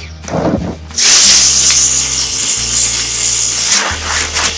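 Pressure washer spraying a jet of water onto a washing machine's plastic outer tub: a loud hiss of spray over a steady low hum. The spray drops off briefly at the start and comes back on about a second in.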